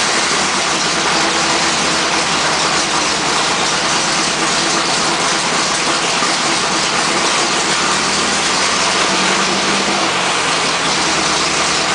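A loud, steady machine noise, a hiss with a faint hum, running unchanged throughout.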